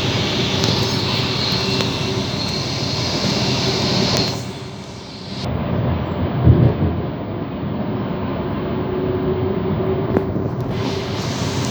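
Sydney suburban train running, heard from inside the carriage: a steady rumble and hiss of the train in motion, dropping quieter for about a second around four seconds in, with a brief low thump about six and a half seconds in.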